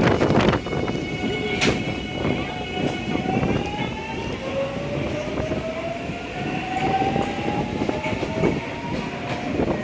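JR Kyushu train moving through the station, with a whine that rises slowly in pitch as it gathers speed over wheel and rail clatter.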